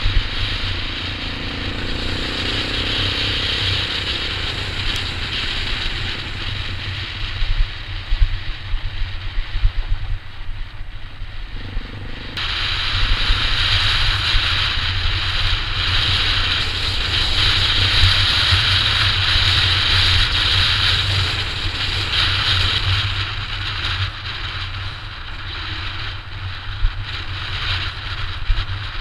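Honda CRF230F single-cylinder four-stroke dirt bike engine running while riding, with wind noise on the microphone. The wind hiss gets suddenly louder about twelve seconds in.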